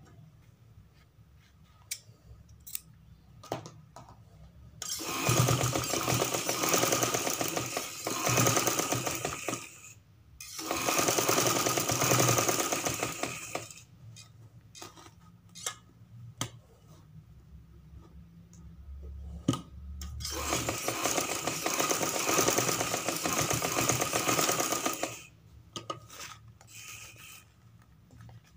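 Domestic sewing machine stitching cloth in three runs of a few seconds each, the first two nearly back to back, as an extra fabric piece is sewn onto a sleeve. Between the runs, light clicks and knocks come from the cloth being handled and repositioned.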